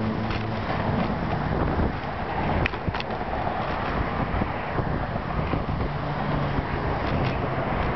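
Steady noise of car traffic passing on the Golden Gate Bridge roadway, with wind on the microphone of a moving road bike. A low foghorn blast fades out just after the start, and a few sharp clicks come about three seconds in.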